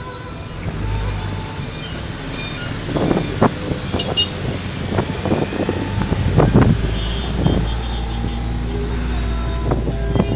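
Vehicle engine and road rumble inside a moving vehicle's cabin in dense traffic. A run of short, sharp knocks or clatters comes through the middle.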